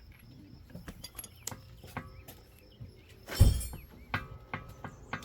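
Metal tools and car parts clinking and knocking as they are handled, with one loud heavy thud about three and a half seconds in.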